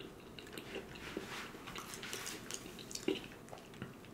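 Close-up mouth sounds of a person chewing food with lips closed: faint wet smacks and small clicks, one a little louder about three seconds in.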